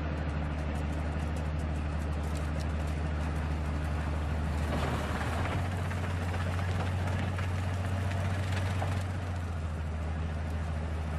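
Heavy diesel engine of a railway snow-clearing train running with a steady low drone. A louder hissing rush rides over it from about four and a half to nine seconds in.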